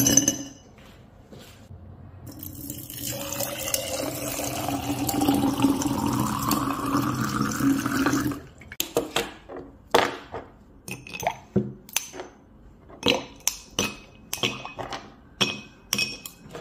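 Water poured into a glass jar of ice cubes, its pitch rising steadily as the jar fills, then stopping abruptly. After that comes a run of sharp clinks of ice cubes against glass.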